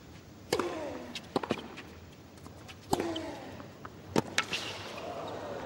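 Tennis ball struck by rackets in a rally on a hard court: a few sharp hits a second or more apart, with lighter bounces between them. Two of the hits are followed by a player's grunt that falls in pitch.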